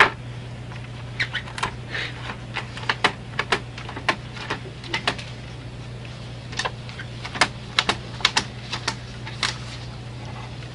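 Irregular sharp clicks and taps, roughly two a second and some in quick clusters, over a steady low hum.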